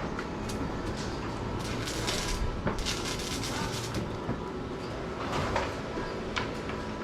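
Building-site noise: a steady low rumble with scattered knocks and clanks, and a few short hissing crackles about two to three seconds in.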